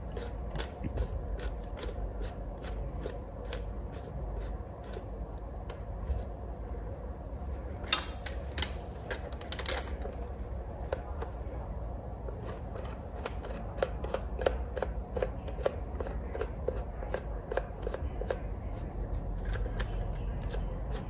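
Hand ratchet clicking in quick, regular clicks as it tightens a filter wrench on an oil filter, with a louder clatter of tool handling about eight to ten seconds in.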